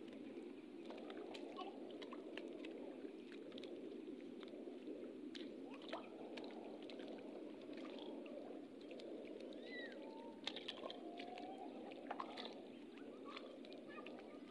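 Steady wash of sea surf, with scattered small clicks and splashes and a few faint brief tones about ten to twelve seconds in.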